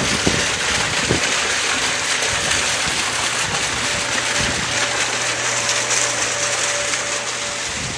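Water pouring from two wall-mounted spouts and splashing into a plunge pool: a steady splashing. A low hum joins about halfway in.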